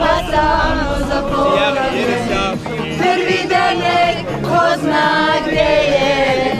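A group of people singing a song together in chorus, several voices at once.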